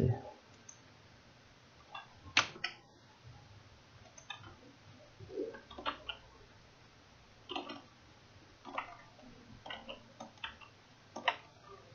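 Computer mouse clicks and keyboard key presses, about ten short sharp clicks at irregular intervals over a quiet room hum.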